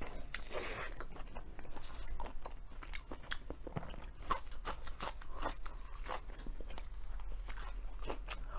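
Close-up chewing and biting of blood sausage: irregular wet mouth smacks and clicks with crunchy bites.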